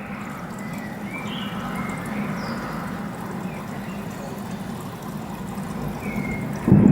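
A steady low background noise with a few faint high chirps, then near the end a sudden loud thunderclap that keeps rolling.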